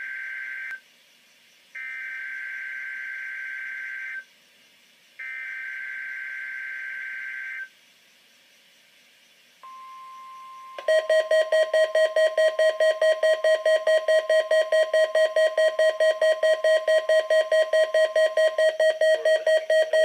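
Midland WR300 weather radio receiving a NOAA Weather Radio Required Weekly Test: three screechy SAME digital header bursts, each a couple of seconds long with a short gap between. Then the steady 1050 Hz warning tone comes in faintly, and about a second later the radio's own loud alert alarm starts beeping rapidly, about four to five beeps a second, over it.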